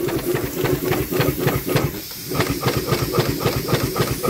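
US Navy K-type vertical steam engine running, its exhaust beating in a rapid, even rhythm over a steady hiss of escaping steam.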